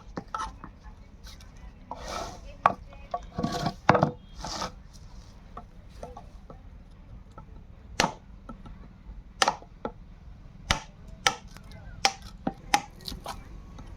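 A wooden workpiece being struck by a carpenter's hand tool: about a dozen sharp knocks, spaced unevenly, with a few longer scraping sounds in between.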